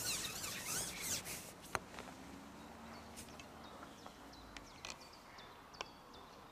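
Carbon fishing pole being shipped back by hand: a brief rubbing and rustling with a sharp click about two seconds in, then faint bird chirps over a quiet outdoor background.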